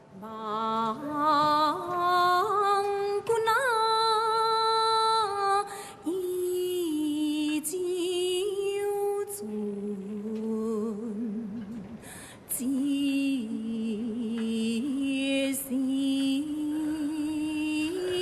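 A solo voice singing a slow gezai opera (Taiwanese opera) aria in Hokkien, moving step by step between long held notes with a wide vibrato. There is light accompaniment and a few sharp knocks.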